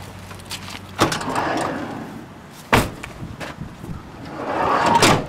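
Car doors shutting: a thud about a second in and a sharper slam a couple of seconds later. Then a rush of noise that grows louder and cuts off suddenly at the end.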